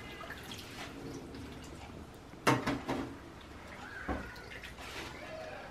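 Hands stirring and lifting wet spinach leaves in water in a large stainless-steel bowl: scattered rustling and splashing, loudest about two and a half seconds in, with a dull knock about four seconds in.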